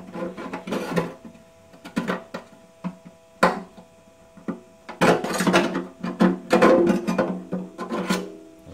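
Pliers working a small sheet-steel patch in the cut-out of a steel motorcycle fuel tank: scattered metal clicks and taps, then a busier stretch of clattering and scraping about five seconds in.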